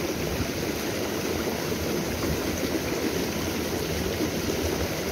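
Stream water rushing steadily where it pours over a small drop into a pool, a continuous even wash of noise.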